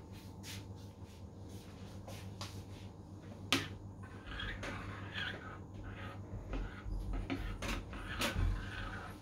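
Metal spoon stirring chocolate pieces into cream for ganache in a bowl. It gives a sharp clink about three and a half seconds in, then soft repeated scraping of the spoon against the bowl.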